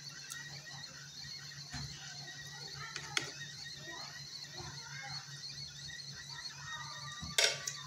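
A ladle knocking faintly in a pot of soup, with one sharper click about three seconds in and a louder scrape near the end, over a steady low hum.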